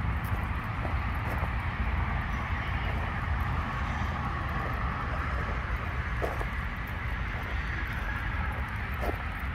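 Steady hum of road traffic from a nearby highway, with a couple of faint short chirps in the second half.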